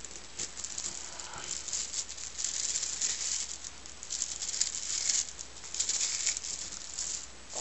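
Small magnetic spheres rattling and clicking against one another as they are handled, in three bouts of fast, dense clicking.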